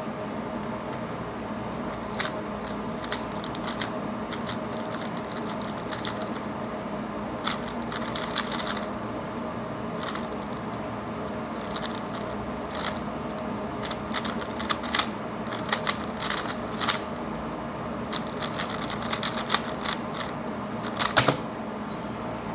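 A 3x3 Rubik's cube being turned fast during a speedsolve: runs of plastic clicking and clacking in irregular bursts that grow busier in the second half, with a sharper clack near the end. A steady hum runs underneath.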